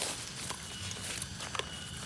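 Night outdoor ambience: a steady high insect tone over a hiss, broken by a few irregular clicks and rustles.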